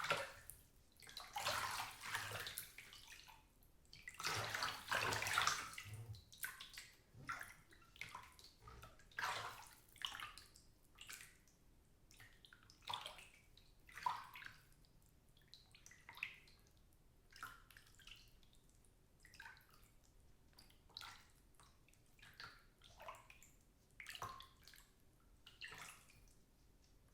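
Water moving in a filled bathtub: heavy sloshing for the first several seconds, then smaller irregular splashes and drips that thin out and grow quieter.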